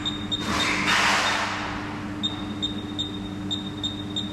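Resistance spot welding machine: a hiss of air surges twice in the first second and fades, over a steady electrical hum. In the second half, short high beeps repeat irregularly, as from keys being pressed on the welder's control panel while the weld current is set.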